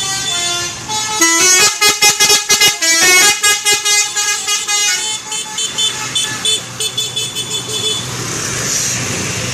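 Bus 'telolet' horns, multi-note musical air horns, played in a quick pulsing melody of several notes. The horns are loudest and fastest from about one to five seconds in, then go on in fainter short notes before giving way to a steady noise near the end.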